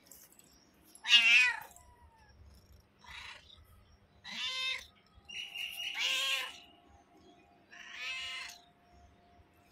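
A cat meowing five times in separate calls with a wavering pitch. The first meow, about a second in, is the loudest.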